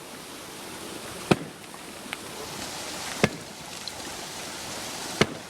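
Sledgehammer blows, three heavy strikes about two seconds apart, each with a short ring, over a steady hiss.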